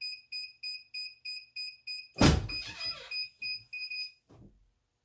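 Heat press timer beeping rapidly, about three short high beeps a second, the signal that the pressing time is up. About two seconds in the press is opened with a loud clunk; the beeping stops about four seconds in, followed by a softer knock.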